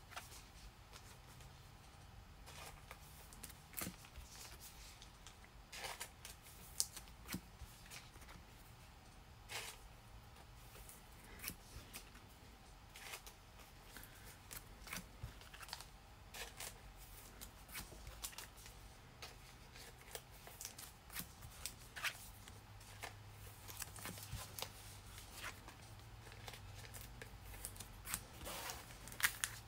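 Faint, scattered clicks and rustles of trading cards and plastic sleeves being handled, over a low steady hum.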